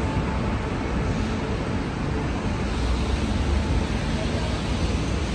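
City street ambience: a steady wash of traffic noise with a strong low rumble.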